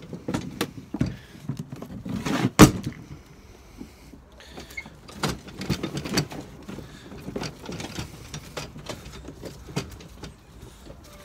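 Feed-laden wheeled trolley cart knocking and rattling as it is pulled along on foot, with clothing brushing close by; one loud knock about two and a half seconds in.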